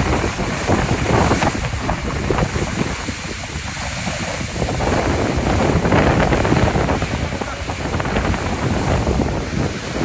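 Thunderstorm: strong gusting wind buffeting the microphone over a loud rush of heavy, wind-driven rain. The level swells and eases with the gusts.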